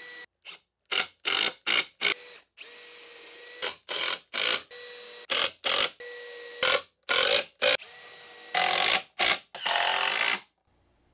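Cordless drill-driver running in many quick bursts with a few longer steady whines, driving screws to join plywood box panels. It stops about ten and a half seconds in.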